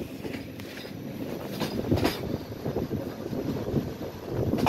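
Passenger train running along the track, heard from inside the carriage: a steady rumble under the floor with a few irregular sharp clicks of the wheels over the rails, two close together about two seconds in.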